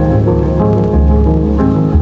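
Background music: held chords over a deep bass, changing every half second or so.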